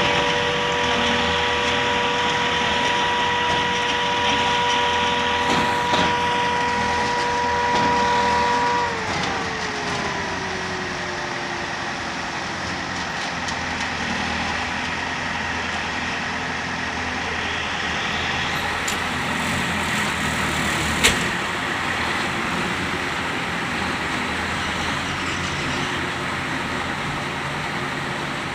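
Heavy machine's engine running at high revs with a steady whine, then winding down to a lower, steady run about a third of the way in. A single sharp knock comes about two-thirds of the way through.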